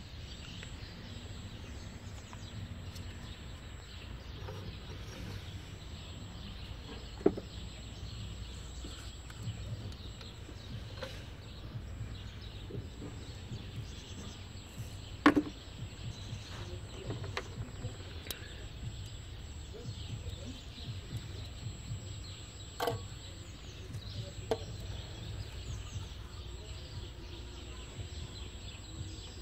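Steady outdoor background rumble with a few sharp metal clinks from hand tools, a socket wrench and extension bar, the loudest about halfway through with a short ring after it.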